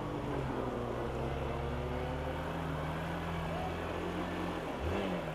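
Hero Xpulse 200's single-cylinder engine running steadily at low speed as the bike is ridden through floodwater, with a brief rise in pitch near the end.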